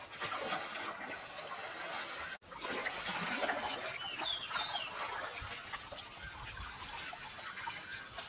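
Shallow stream water splashing and sloshing as a woven basket is swept and scooped through it by hand. A short bird chirps a few times about four seconds in.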